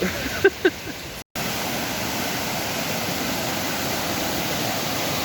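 Rushing water of a river running full, a steady, even hiss that starts abruptly after a short break about a second in. A couple of brief, faint sounds come just before the break.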